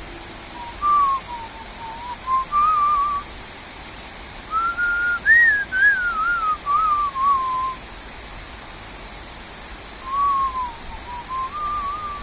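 A person whistling a melody in several short phrases that rise and fall, over a steady hiss of rain.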